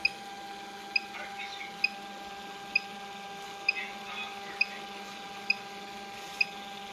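Philips ECG machine giving a short high beep with each detected heartbeat, evenly spaced about 0.9 s apart, in step with the 66 beats a minute on its screen. Under the beeps runs the steady whine of its thermal printer feeding out the trace strip.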